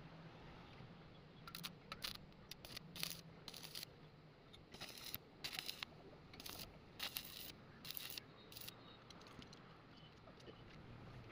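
Light clinking and scraping of small metal parts being handled in a workshop: about fifteen short, sharp clinks spread unevenly over several seconds, over a faint low hum.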